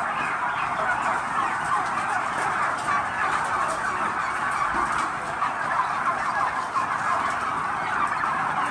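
A large flock of domestic turkeys calling, a dense, steady chorus of many short overlapping calls.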